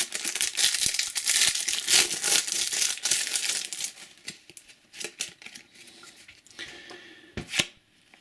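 Foil trading-card booster pack wrapper being torn open and crumpled: dense crinkling for about four seconds, then scattered crinkles and a few sharp clicks.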